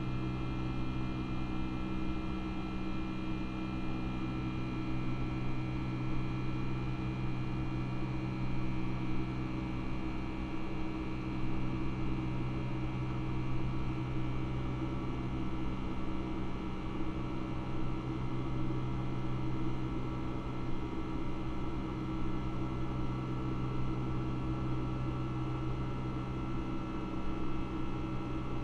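Boeing 757-200 cabin during the climb after takeoff, heard from a window seat beside the engine: a steady engine hum with several held tones over the rush of airflow, unchanging throughout.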